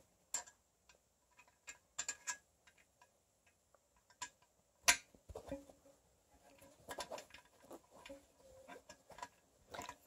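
Faint, scattered light metallic clicks of an Allen key working a bolt out of a metal bracket on a vacuum-cleaner stand, with one sharper click about five seconds in.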